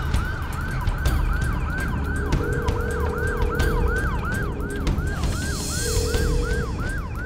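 Police car siren in a fast yelp, about three falling sweeps a second, over the low rumble of a car driving behind it.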